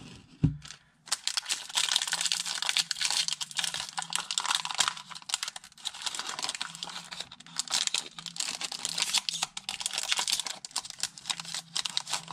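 Foil Pokémon TCG booster pack wrapper crinkling and crackling as it is torn open and handled. A brief knock comes about half a second in, and the dense crackle starts about a second in.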